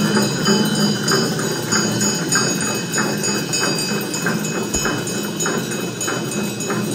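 Tibetan Buddhist ritual instruments in a puja: bells ringing steadily over a regular beat of about two strokes a second.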